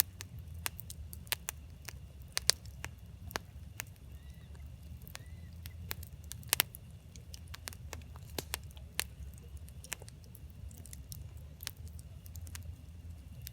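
Firewood crackling and popping in a campfire: irregular sharp snaps, a couple of them louder, over a steady low rumble.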